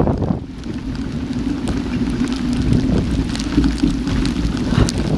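Storm wind buffeting the microphone of a bike-mounted action camera, a loud steady rush, with scattered clicks and rattles from the mountain bike rolling over a gravel track.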